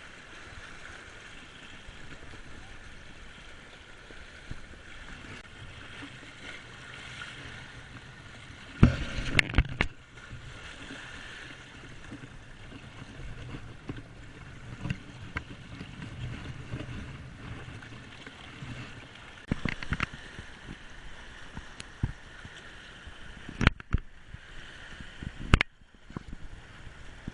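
Steady outdoor background hiss with a few sharp knocks and clatters. The loudest cluster comes about nine seconds in, with more near twenty seconds and twice near the end.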